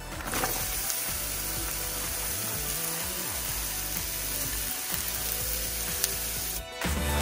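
Food sizzling steadily as it fries in a hot pan, with a brief break near the end.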